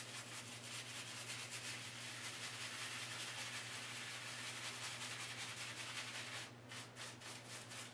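Badger shaving brush loaded with shaving cream being worked over a face to build lather: faint, quick swishing and rubbing strokes of wet bristles on skin.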